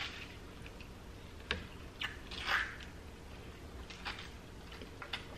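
Faint eating sounds from a mouthful of halo-halo: a few soft mouth clicks and smacks, and a brief breathy rush of noise about two and a half seconds in.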